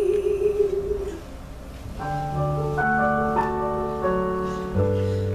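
A woman's held sung note with vibrato ends about a second in; then a piano plays slow sustained chords, with a bass coming in under them near the end.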